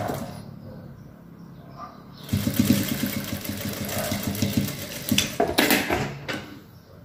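Jack industrial straight-stitch sewing machine stitching a seam close to the edge of soft fabric, with a rapid, even run of stitches. It stops just after the start, runs again for about three seconds from about two seconds in, and then gives a short cluster of sharp clicks.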